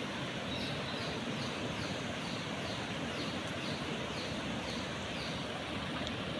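Steady rush of flowing river water, with a faint high chirp repeating about twice a second over it.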